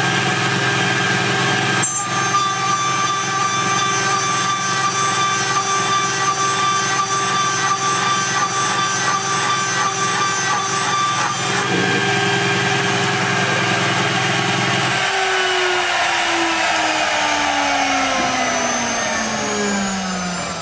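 DMC2 CNC mill's spindle driving a 6 mm end mill through 6061-T6 aluminium with coolant spraying: a steady machining whine made of several tones, shifting about two seconds in. About three-quarters of the way through, the cut ends and the spindle winds down in a steadily falling whine.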